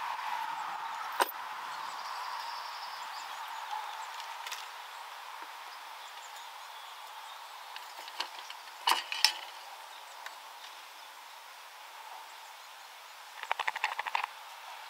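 Small metal clinks and taps as tweezers, brass parts and a metal bar jig are handled on nickel-silver model railway track, the sharpest clinks about eight to nine seconds in. Near the end a quick crackling run of ticks as the soldering iron is put to the rail.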